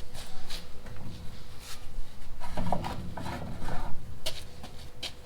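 Scattered knocks, clinks and scraping of steel pieces and tools being handled, busiest in the middle.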